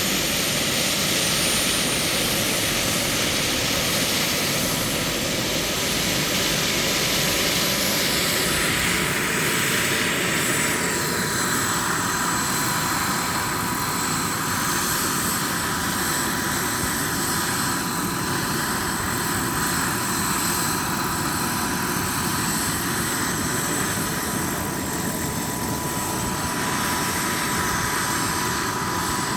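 Radio-controlled helicopter flying: a steady rush of rotor and motor noise with a constant whine, easing somewhat about ten seconds in.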